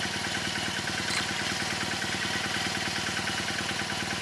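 WARN XT17 portable winch running steadily under load as it hauls a motorcycle out: an even mechanical drone with a fast, regular pulse.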